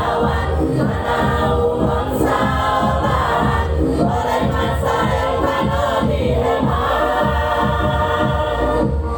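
Choir singing over accompaniment with a steady beat.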